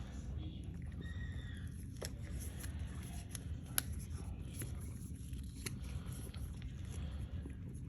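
A cat licking and chewing a soft treat: faint, scattered wet clicks and smacks, with one sharper click nearly four seconds in, over a low steady room hum.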